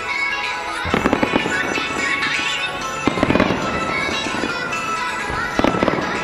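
Aerial firework shells bursting in three quick volleys of bangs and crackles, about two and a half seconds apart. Music plays steadily underneath.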